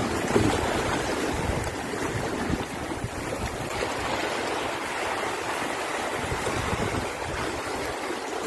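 Small waves washing in over shoreline rocks, a steady rush of churning seawater.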